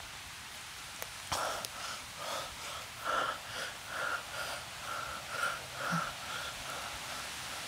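A man breathing hard in quick, wheezing breaths, about two a second, fading out near the end.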